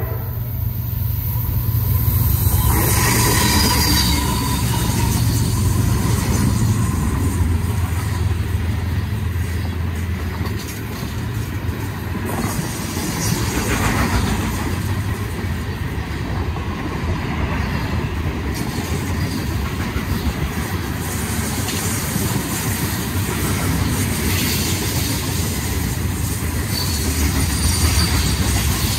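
CSX freight train passing close by. The diesel locomotive's engine hum is strongest in the first several seconds. Then a long string of open hopper cars rolls past with a steady rumble and the clatter of wheels on the rails.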